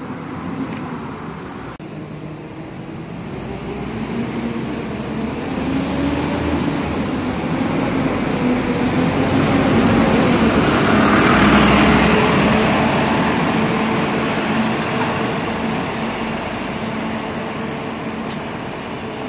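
A bus driving past at close range on a wet road, its engine and tyre noise building to loudest about eleven seconds in, then fading away.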